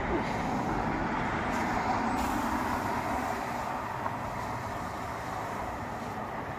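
Road traffic noise from a passing vehicle: a steady noise that swells a couple of seconds in and eases off toward the end.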